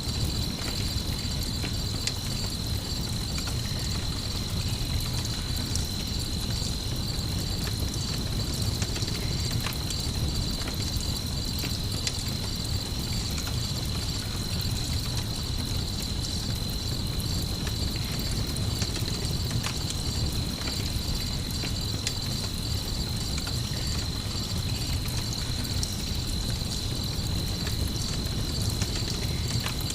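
Crickets trilling steadily in a high, even chorus over a low rumble, with scattered faint crackles from a campfire.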